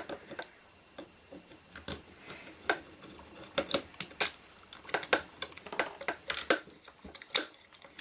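Screwdriver and small metal parts of a field telephone being worked by hand: about a dozen irregular sharp clicks and knocks.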